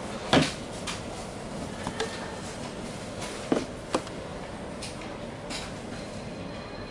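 Clicks of the front-panel rocker switch and mode push-buttons on an ANJING AJ-618C 12V/24V battery charger being pressed: one sharp click about a third of a second in, a lighter one around two seconds, and two more in quick succession about three and a half seconds in.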